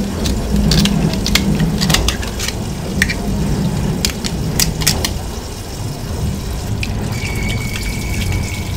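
Tap water running steadily into a stainless sink while a metal knife clicks and scrapes against an abalone shell, prying the meat loose. Near the end a thin, steady high tone sounds for about a second and a half.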